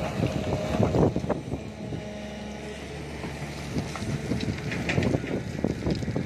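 Diesel engine of a SANY crawler excavator running steadily while it digs, with gusts of wind buffeting the microphone.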